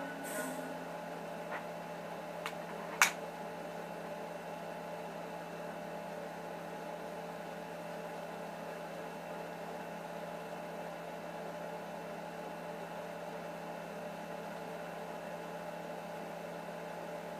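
Steady hum of room tone with several fixed pitches in it. A few sharp clicks come in the first three seconds, the loudest about three seconds in.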